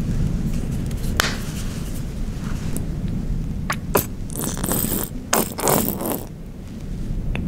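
Small metal spice tins clicking and scraping as they are handled beside the pan, with several sharp clicks and a longer scraping run about halfway through. Under it, a steady low rumble of hurricane wind buffeting the hut.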